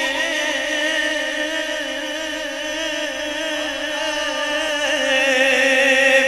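Unaccompanied vocal chanting of a naat: a long, held, wordless tone that wavers with a steady vibrato.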